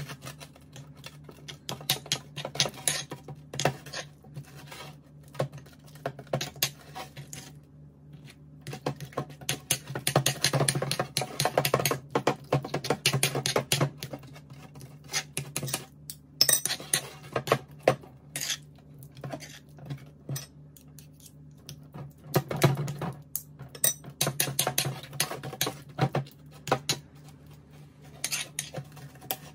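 Metal spoon scraping and clinking against a small ceramic bowl while mashing and stirring margarine with minced garlic, in rapid, irregular strokes that grow busier at times.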